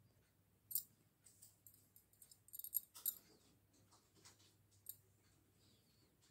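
Faint clicks of knitting needles as stitches are worked: a single sharp click about a second in, a quick run of clicks around the middle, and one more a little later.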